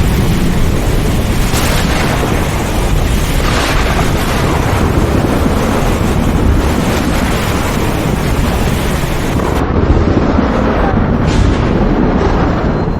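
Thunder rumbling loudly and continuously, with sharper cracks about a second and a half in, about three and a half seconds in, and near the end.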